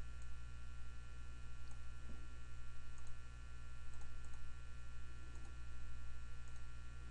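Steady electrical mains hum in the recording, with a few faint computer-mouse clicks.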